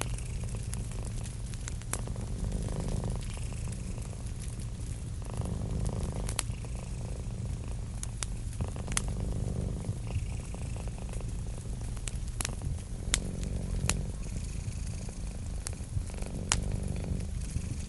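Cat purring steadily in a low rumble that swells and eases with each breath, over a wood fire crackling with sharp pops.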